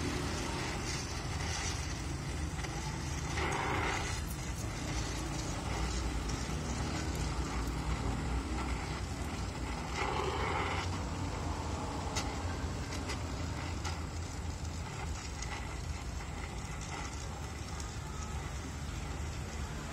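Oxy-acetylene welding torch flame hissing steadily as it welds a patch over rusted-through sheet steel on a car's wheel arch.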